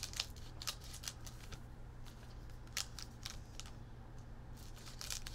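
Scissors snipping open a plastic baseball-card pack wrapper: a scattering of short, sharp snips and crinkles.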